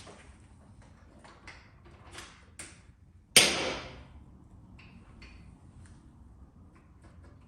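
Small clicks and knocks of tools and metal parts being worked by hand on a motorcycle's clutch cable, with one loud clattering bang about three and a half seconds in that dies away quickly.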